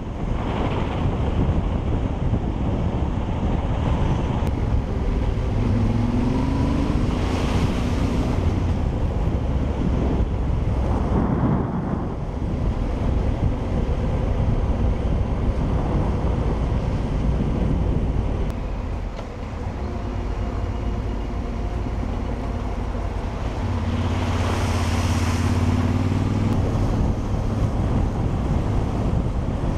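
Wind buffeting the microphone of a moving vehicle, with an engine running underneath. The engine's pitch rises briefly about six seconds in and again near the end.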